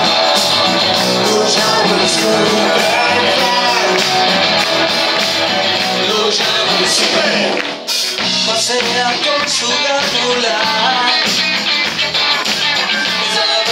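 Live rock band playing: a male lead singer with electric guitar and drums, loud as heard from within the audience. The music breaks off briefly about eight seconds in before carrying on.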